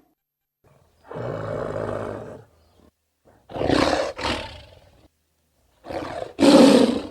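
Three separate monster roars, sound effects made from film and TV dinosaur and creature sounds, with short silences between them. The first, about a second in, is lower and quieter; the second has a short break in the middle; the last, near the end, is the loudest.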